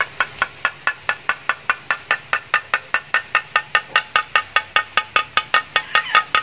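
Perforated metal strainer being tapped in a quick, even rhythm, about five taps a second, each tap ringing briefly: the tapping knocks gram-flour batter through the holes as boondi drops into hot oil.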